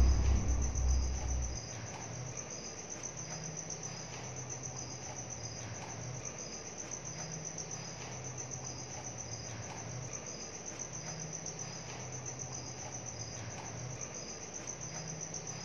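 Crickets chirping steadily in a high, continuous trill. The tail of a deep boom dies away in the first second and a half.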